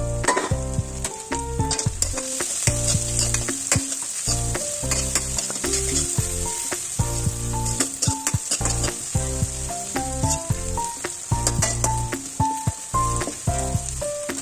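Food sizzling as it fries in a pan, stirred with a utensil that clicks against the pan again and again. Background music with a melody and a bass line plays throughout.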